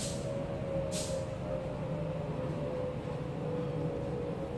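Steady mechanical hum with a low rumble and a slightly sinking tone, like a motor or engine running nearby, with two short hisses, one at the start and one about a second in.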